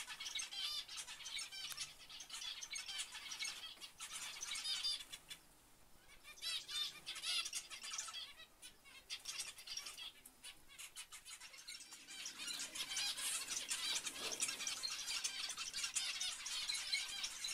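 A flock of zebra finches calling, a busy overlapping chatter of short high chirps, with brief lulls about six seconds in and again near eleven seconds.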